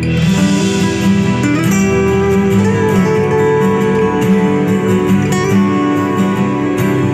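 Guitar-led instrumental music with strummed guitar, played back through Sony SA-Z1 near-field powered speakers and picked up at the listening position.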